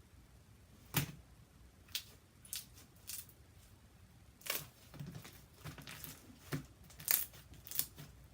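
Slime being stretched and worked by hand: about ten short, sticky clicks and crackles at irregular intervals.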